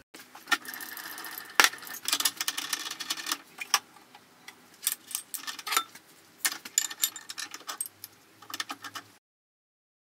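Irregular metallic clicks, clinks and rattles from a steel bar being handled and set in a milling vise on the mill table. There is one louder knock about one and a half seconds in, and the sound stops abruptly about nine seconds in.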